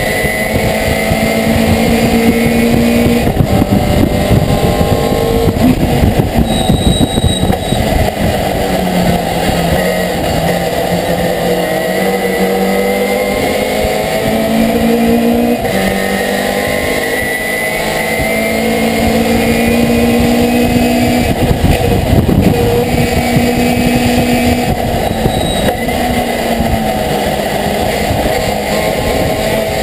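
Racing pickup truck's V8 engine at full throttle, heard from inside the cabin. The pitch climbs through each gear and drops back at every shift or lift for a corner, again and again.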